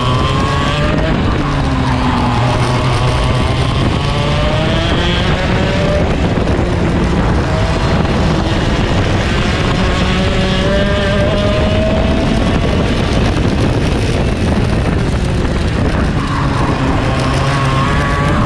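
Racing kart's two-stroke engine at full throttle, its pitch climbing on the straights and falling back for the corners, heard onboard over a steady rush of wind.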